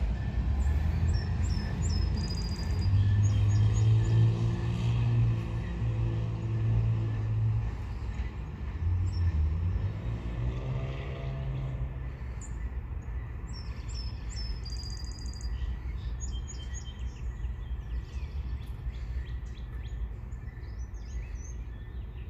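Steady low rumble of a freight train rolling slowly past, with a deep engine hum that swells in the first half and fades out about midway. Birds chirp several times over it, near the start and again in the second half.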